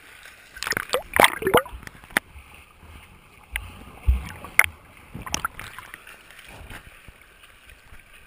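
Sea water splashing and sloshing around a GoPro at the surface while its wearer swims, with a low muffled rumble when the camera dips underwater about four seconds in. A brief voice is heard about a second in.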